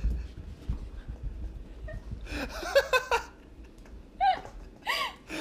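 A dog scrambling after a laser-pointer dot on carpet, with soft thumps and scuffs, and people laughing, once midway and again near the end.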